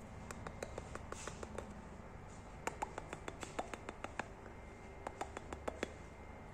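Fingertips tapping on the glass of an empty glass tank: quick, sharp taps in three irregular runs, the loudest in the middle.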